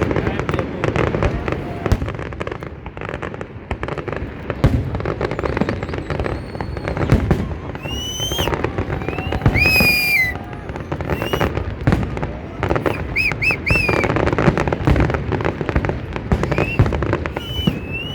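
Fireworks display: a dense, continuous run of cracks and bangs, with a few short high whistles in the second half.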